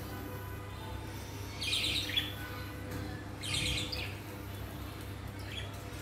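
Pet budgerigars chirping in two short bursts, about one and a half and three and a half seconds in, over a steady low hum.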